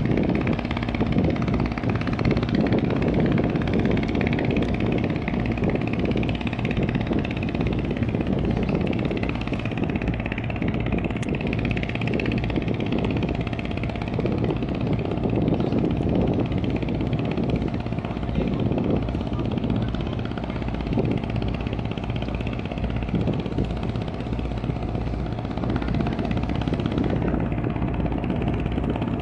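A river boat's engine running steadily, with an even drone and no change in speed.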